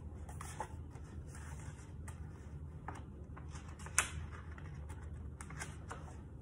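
Faint handling of a picture book, its pages being turned: soft paper rustles and scattered small clicks, with one sharper click about four seconds in, over a low steady room hum.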